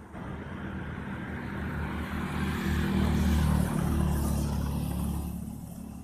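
A road vehicle passing close by on the bridge. Engine and tyre noise builds to a peak around the middle and fades away near the end.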